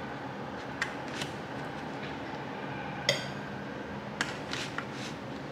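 Metal spoon clinking against a ceramic bowl and a plastic takeout container while eating: about six light clicks, the loudest about three seconds in with a brief ring. A steady low hum runs underneath.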